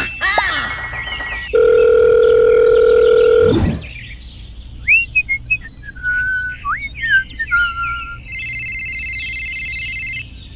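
A string of cartoon sound effects. A sparkly chime comes first, then a steady telephone dial tone lasting about two seconds, a few seconds of scattered bird-like chirps, and then a steady electronic phone ring tone for about two seconds near the end.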